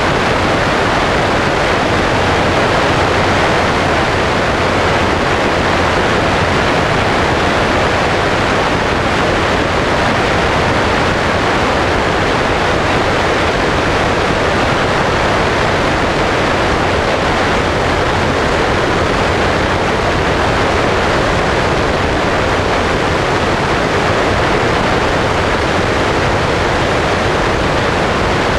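Steady rush of airflow over a wing-mounted camera's microphone on a Sonex light aircraft in flight, with a low steady hum from the engine and propeller underneath.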